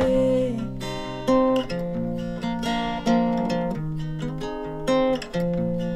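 Acoustic guitar with a capo, strummed with chords changing about every second, in a song's instrumental break between sung lines. A held sung note dies away about half a second in.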